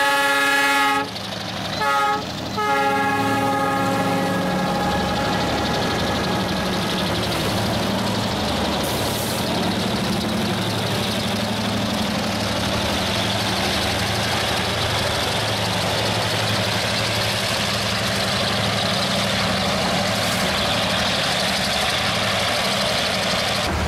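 Diesel freight locomotive's air horn sounding, cutting off about a second in, then two short blasts around two seconds in. The locomotive then runs past with a low engine drone and the freight wagons roll by with a steady rumble of wheels on rail.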